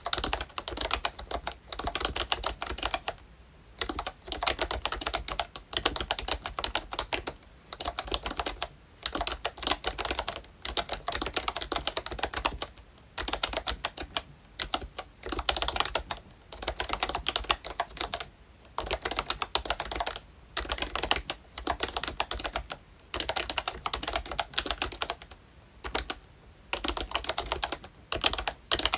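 Typing on a ROYCHE Disney Mickey Mouse retro membrane keyboard with round typewriter-style keycaps: rapid runs of key clicks broken by short pauses every second or two.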